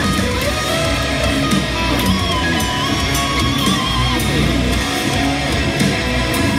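Heavy metal electric guitar, an Acacia Romulus played through a Line 6 Helix amp modeller, riffing over a full band track with drums and bass.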